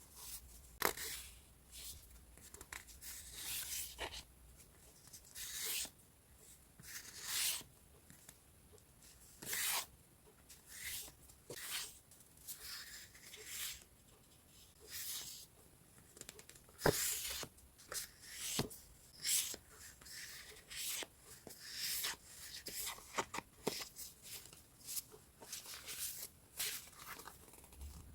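Sheets of scrapbooking paper being handled: repeated short rustles and crinkles at an irregular pace, with a couple of sharp taps.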